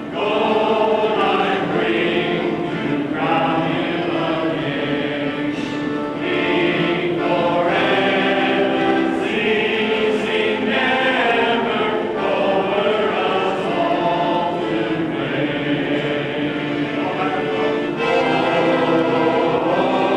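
A choir singing, with sustained held chords that change every second or two.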